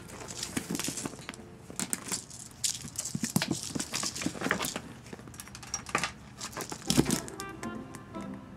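Irregular rustling and crinkling from a cat-teaser wand's streamer toy and a cat pouncing and scrambling on a woven floor mat, with a louder thump about seven seconds in. Background music comes back near the end.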